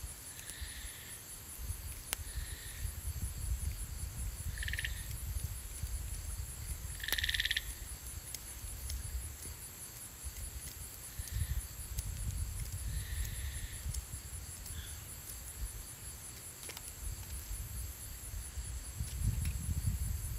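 Night insects chirring steadily in a fast, high-pitched pulse, with a short animal call repeating every couple of seconds, the loudest of them about seven seconds in. A low rumble runs underneath.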